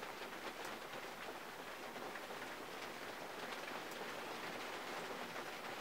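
Rain falling on the body and windows of a 1951 Mercury, heard from inside the cabin: a steady patter with scattered sharper individual drop ticks.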